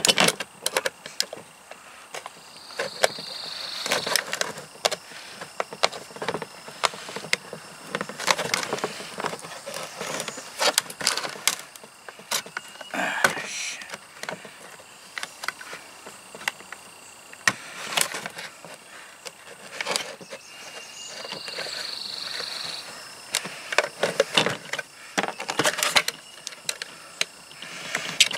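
Knife cutting and prying a hole in the wall of a plastic coffee canister: irregular scraping and creaking of the plastic, broken by sharp clicks that get louder near the end.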